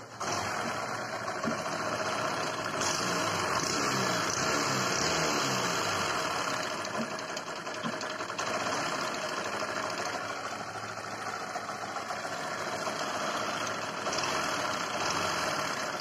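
Bajaj Discover 100's single-cylinder four-stroke engine starting and running with a loud clattering rattle. The rattle comes from a broken timing chain tensioner and a worn-out timing chain.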